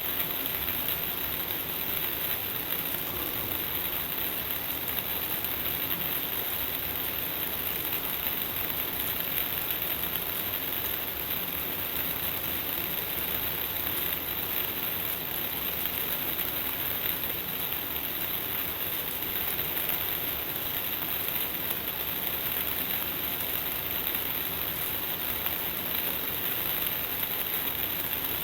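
Shower running: water spraying and falling steadily, without a break.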